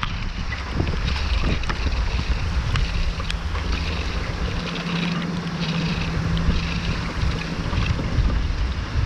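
Storm wind buffeting the microphone in heavy gusts, with a dense rushing noise and scattered sharp ticks. A low steady hum comes in about three seconds in and fades near the end.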